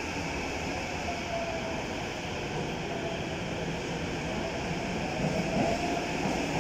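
Tokyo Metro 15000 series subway train pulling out of an underground station and picking up speed, with a motor whine whose pitch glides up and down over the running noise. The wheel and rail noise grows louder from about five seconds in.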